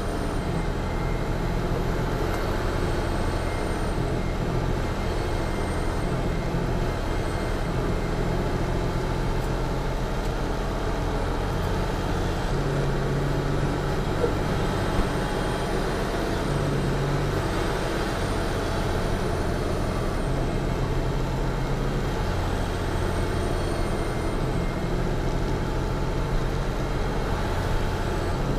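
Western Star truck's diesel engine droning steadily in third gear with the splitter in direct, holding a fully loaded semi-trailer back on a long downhill, heard from inside the cab along with road noise.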